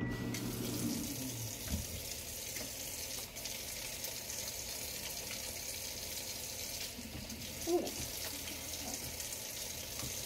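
Kitchen faucet running steadily into the sink while hands are washed under it.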